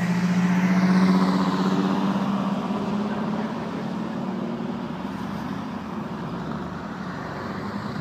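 Vintage sports car's engine passing close at speed, loudest about a second in and then fading, followed by the steady sound of more cars driving by.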